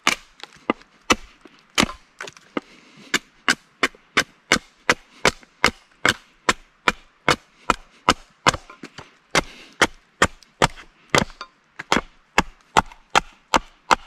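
A wooden mallet striking a splitting blade over and over, about two to three sharp knocks a second, to rive thin shingles from dry oak heartwood.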